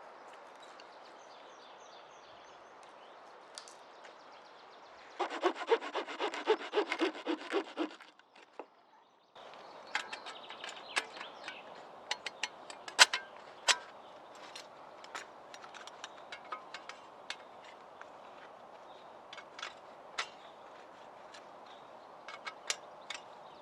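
A hand saw cutting through wood in quick, even strokes, about three a second, for roughly three seconds. After a brief gap come scattered sharp snaps and clicks.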